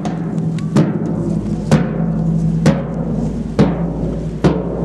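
Large field drum beaten slowly and steadily, about one stroke a second, each stroke ringing on briefly.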